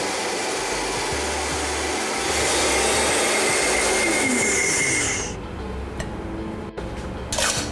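Countertop blender running while it blends herbs into a thick mayonnaise. It gets louder about two seconds in and stops about five seconds in.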